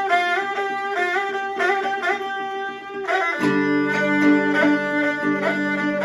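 Instrumental Peking opera accompaniment: a bowed string melody moving in quick steps over plucked strings, with a sustained low chord coming in about halfway through.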